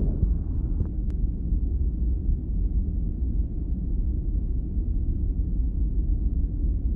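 Stethoscope auscultation recording of the chest: a steady low rumble with no clicks or pitched tones.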